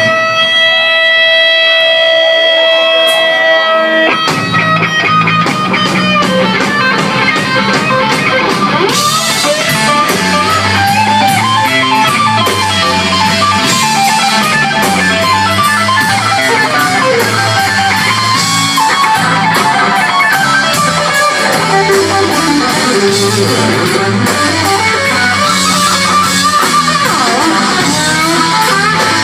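Live rock band playing loud. A single note is held alone for about the first four seconds. Then bass and drums come in, and cymbals join about nine seconds in.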